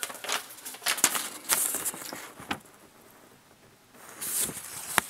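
Sheet of paper rustling and crackling as it is handled, in short spells with a near-quiet pause in the middle, and one sharp click near the end.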